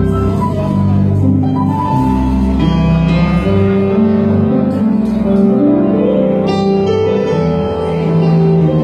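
Live band music with long held chords on keyboard over a steady bass line, heard through a phone recording made in the audience.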